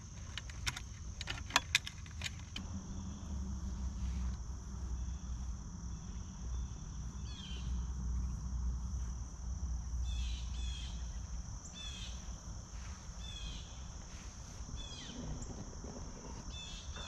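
A few light metallic clicks in the first couple of seconds as the exhaust heat-shield clamp is worked together. Then steady outdoor ambience: a continuous high insect chirring, a low rumble, and short bird chirps repeating through the second half.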